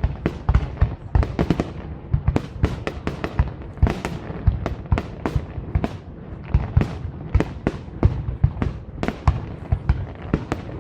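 Aerial fireworks bursting in rapid, irregular succession, several sharp bangs a second, over a continuous low rumble of echoing booms.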